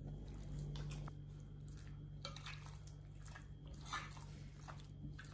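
Spoon mixing raw chicken pieces with curd and spice powders in a glass bowl: faint, irregular wet stirring sounds and light scrapes, starting about two seconds in, over a low steady hum.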